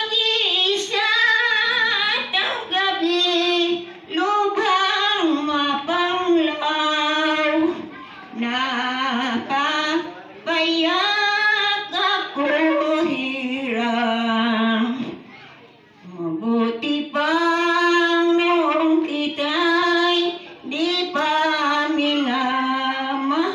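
An elderly woman singing solo into a handheld microphone, in sung phrases with short breaths between them.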